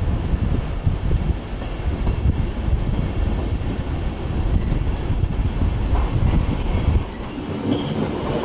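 Deutsche Bahn InterCity trains rumbling across the steel railway bridge, their wheels clattering over the rails. Near the end a double-deck IC train comes past close by, with a brief faint whine.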